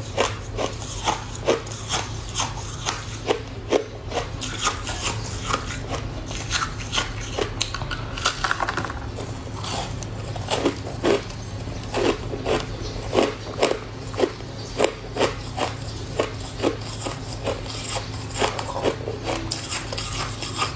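Close-miked crunching of freezer frost being bitten and chewed, a sharp, crisp crunch about twice a second, over a steady low hum.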